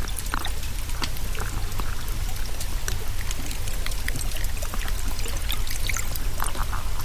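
Underwater hydrophone sound of pistol shrimps snapping their claws: a dense, irregular crackle of sharp clicks over a steady low rumble.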